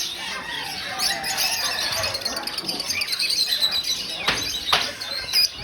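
Many small caged birds chirping and twittering together in an overlapping chorus. Two sharp clicks sound about four and a half seconds in.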